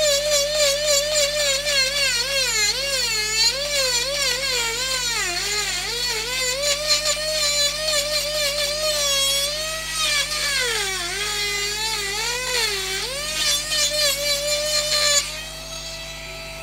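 Music: a single melodic line with many overtones, its pitch sliding and wavering continuously. Near the end it drops to a quieter, steady held note.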